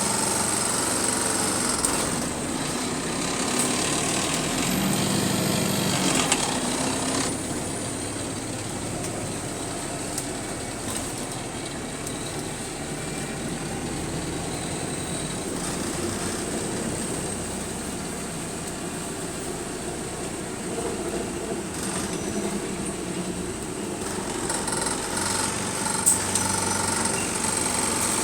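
Bus engine running, heard from inside the bus, with a constant rattling and a steady high-pitched whine.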